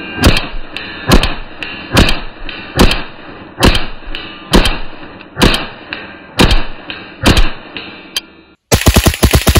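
.22 LR pistol fitted with a muzzle compensator firing about ten shots at a steady pace of roughly one a second. After a brief pause near the end comes a quick string of rapid shots.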